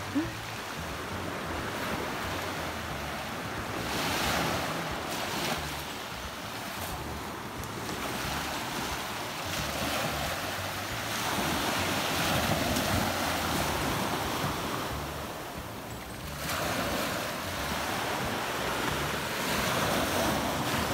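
Small sea waves breaking and washing over a pebble beach, the surf swelling and easing every few seconds, with wind rumbling on the microphone.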